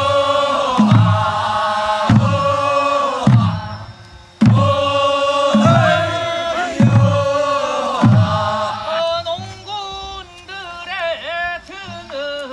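Korean folk music in the pungmul tradition: a melody of long held notes, each begun by a low drum stroke, about one every second and a bit. From about nine seconds in, the melody turns quicker and more ornamented, with a wavering pitch.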